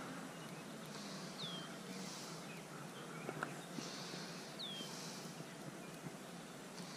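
Outdoor ambience with a bird repeating a short, falling whistled note about every three seconds. Soft, hissy buzzes come in between, over a steady background hiss.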